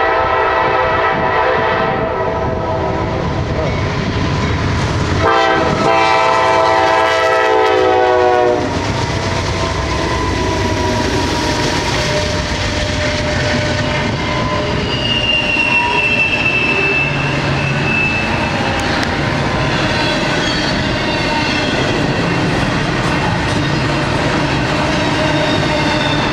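Horn of a Norfolk Southern GE Dash 9 diesel freight locomotive: a long chord fading out early on, then a second blast of about three seconds that cuts off sharply about eight seconds in. The train then rolls past with the rumble of its diesel engines and wheels clicking over the rail joints, with a brief high wheel squeal midway.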